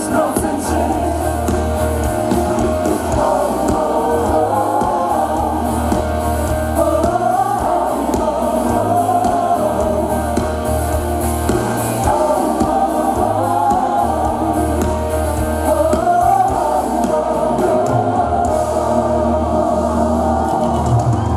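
Live amplified pop song: several female vocalists singing together in harmony over a band with bass guitar and drums, the bass pulsing steadily under the sung melody.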